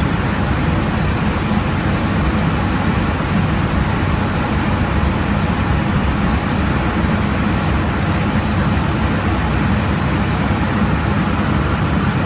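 Steady rush of airflow and engine noise heard inside an aircraft cockpit in cruise flight.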